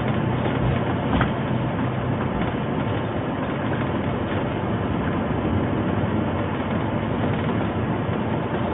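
Steady engine and road noise inside a motorhome's cab while it is driven down a winding road, with a small click about a second in.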